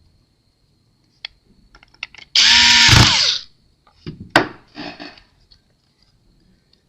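Small power screwdriver driving a laptop hinge screw back in, one run of about a second whose whine falls as the motor stops. A few light clicks of small parts being handled follow.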